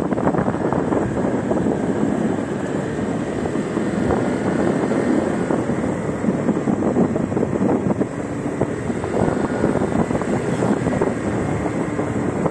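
Motor scooter running at road speed. Wind rushes over the microphone over a steady mix of engine and road noise.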